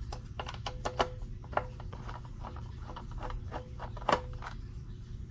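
Irregular sharp metallic clicks and taps of small screws and a screwdriver against the sheet-metal case of an SWR/watt meter as its bottom screws are taken out, some with a short ring. The loudest come about a second in and again near four seconds.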